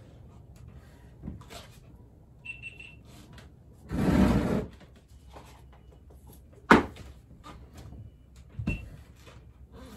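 Handling sounds while dispensing and mixing epoxy: a short rustling, squirting burst about four seconds in, then a sharp knock a few seconds later and a lighter click near the end.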